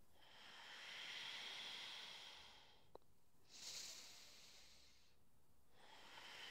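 Faint, slow breathing through the nose: a long breath of about two seconds, a shorter one around four seconds in, and another long breath starting near the end.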